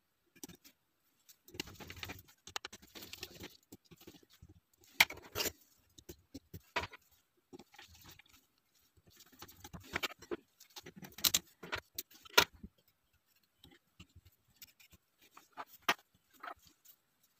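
Small screwdriver and metal lens parts clicking and scraping as screws are driven into the mount of a manual camera lens, with handling rustle between. The clicks come irregularly, a few of them sharp and louder than the rest.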